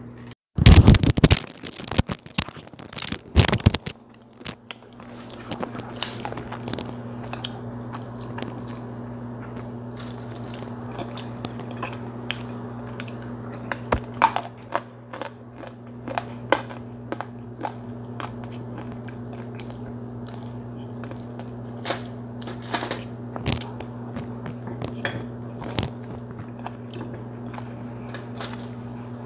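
A person biting into and chewing hard pieces of smoked Liberian clay: two loud crunching bites about a second in and again near four seconds, then steady chewing with many small crisp cracks. A steady low hum runs underneath.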